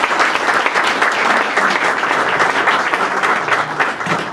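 Audience applauding: many hands clapping, loud and steady.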